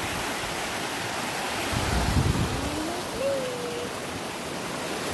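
Creek water rushing steadily over rocks below a waterfall. About two seconds in there is a brief low rumble, with a faint rising then level tone just after.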